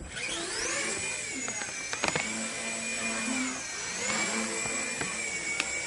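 Walkera CB100 coaxial micro RC helicopter spooling up: its electric motors and rotors rise in pitch over the first second into a steady high whine. The whine wavers, dipping briefly about four seconds in, with a few sharp ticks about two seconds in.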